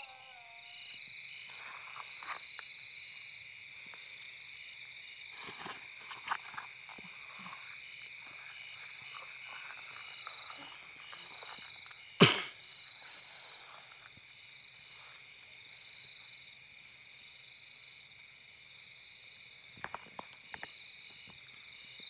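Steady high-pitched chorus of night insects with a pulsing trill, over soft rustling of grass and net being handled. A single sharp click comes about twelve seconds in, and a few small clicks near the end.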